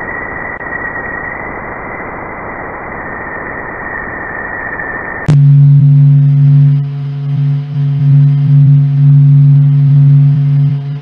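Sonified space recordings played one after another: first a steady hiss with a thin high tone, then, about five seconds in, an abrupt switch to a loud, steady low hum with overtones.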